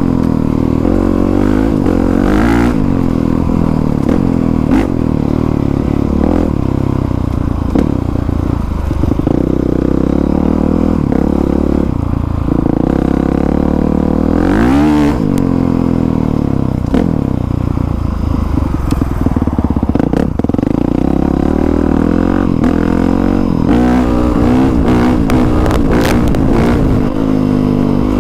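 Honda CRF450R single-cylinder four-stroke dirt bike engine being ridden, its pitch rising and falling constantly with throttle and gear changes, with a sharp rev-up and drop about halfway through.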